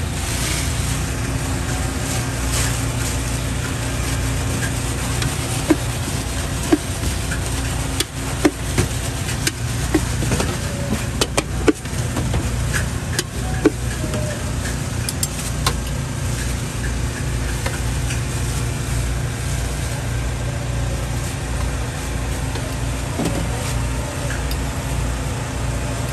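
Steady low rumble of stall and street background, with scattered sharp metal taps and clinks of a spoon and utensils against a steel bowl and cooking surface, most of them between about six and fourteen seconds in.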